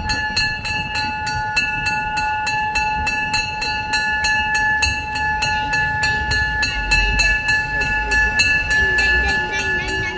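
The Stockton Flyer steam-locomotive sculpture sounding a steady whistle chord of several notes held throughout, over a quick, even beat of clicks at about four or five a second.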